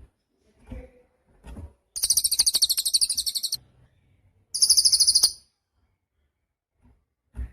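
Cililin bird singing: two fast, high, rattling trills, the first about a second and a half long, the second shorter, with a few faint low knocks around them.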